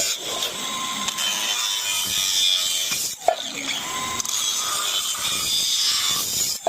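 Abrasive power tool cutting steel framing, a steady high grinding hiss with a short break about three seconds in.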